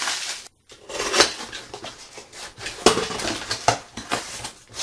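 Hard objects knocking and clinking irregularly as items are handled and rummaged through in an unpacking box, with rustling between the knocks. The sound drops out completely for a moment about half a second in.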